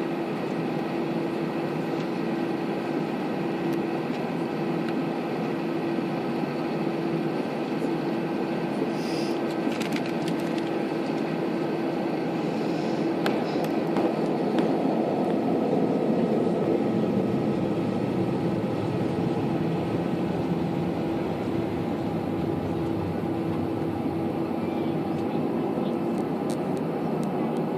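Airliner engines running with a steady hum under a broad rushing noise, growing slightly louder about halfway through, with a few sharp clicks around ten seconds in.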